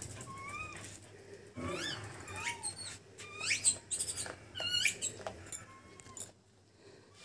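Rhesus macaques giving short, high-pitched squeaky calls, each one rising and falling in pitch, repeated many times.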